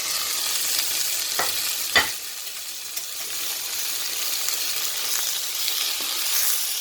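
Tomato sizzling in hot oil with onion and garlic, being stirred in a frying pan; two sharp clacks of the utensil on the pan about one and a half and two seconds in.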